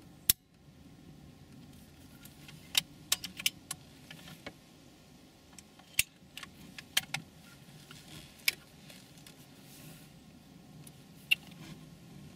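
About a dozen sharp, brief clicks and taps at irregular intervals, some in quick clusters, the loudest a fraction of a second in, over a faint steady low background noise.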